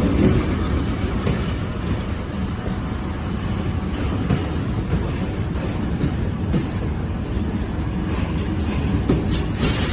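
Moving passenger train coach running on the rails: a steady rumble with the clickety-clack of wheels over the track. A louder rushing comes in near the end.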